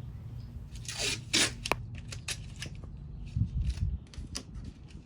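Adhesive tape pulled off the roll in short ripping strips, with light clicks of handling and a few dull knocks about three and a half seconds in.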